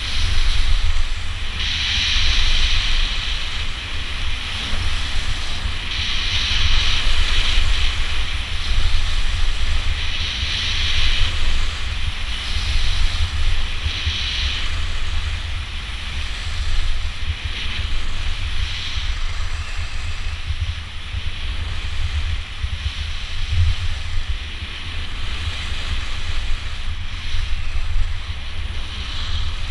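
Wind buffeting the microphone on a downhill ski run, over the hiss of skis sliding on snow that swells and fades again and again.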